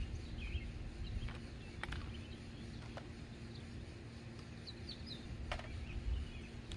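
Songbirds chirping now and then, with a few light knocks and clicks as the drill and weather-station sensor are handled and set down on the shed's shingles.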